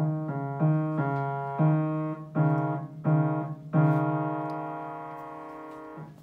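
Upright piano played by a child: a short run of single struck notes, about seven in three and a half seconds, the last one held and fading for about two seconds before it is released near the end.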